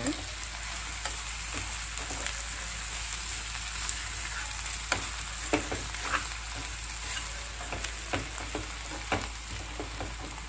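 Sliced ivy gourd (kovakkai) sizzling in oil in a kadai, cooked in oil alone with no water and nearly done, while a steel slotted spoon stirs it. Short clicks and scrapes of the spoon against the pan come now and then, most of them in the second half.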